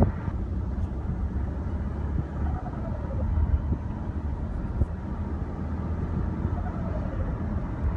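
2016 Volkswagen Passat turbo engine running with a steady low rumble. Twice a faint whine falls in pitch as the revs drop away.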